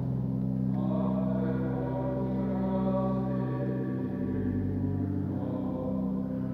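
Church pipe organ playing slow, held chords, changing about a second in and again about four seconds in.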